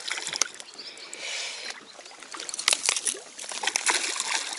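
Water splashing and sloshing at the surface close in, with several sharp splashes, as a large hooked bass thrashes while being played in to be landed.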